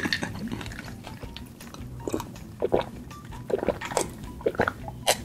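A person gulping iced water from a glass mug: a string of separate swallows about every half second, starting about two seconds in.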